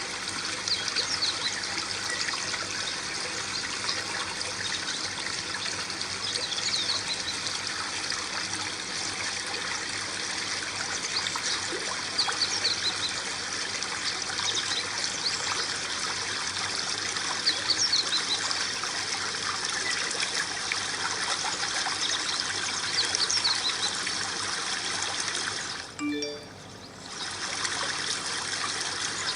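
Water trickling and splashing steadily down the small waterfall of an aquarium terrarium, with fine droplet splashes throughout. The sound drops away for about a second near the end.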